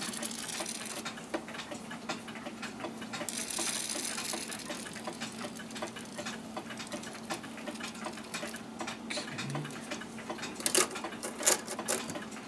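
Ratchet of a mainspring winder clicking in an even series as an antique clock's mainspring is cranked up tight on its arbor, with a few louder metallic clicks near the end. A steady low hum runs underneath.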